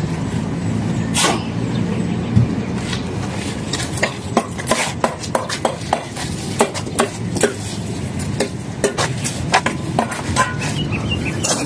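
Masonry work on a concrete hollow-block wall: irregular sharp clicks and scrapes of tools and mortar against the blocks, coming thick and fast from about four seconds in, over a steady low background noise.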